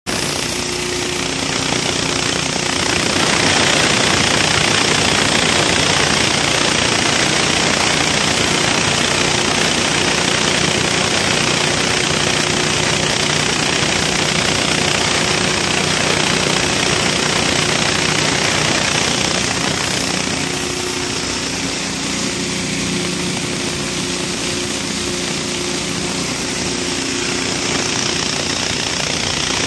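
Corn grinding mill driven by a small single-cylinder petrol engine, running steadily at speed while it grinds dry corn kernels into meal.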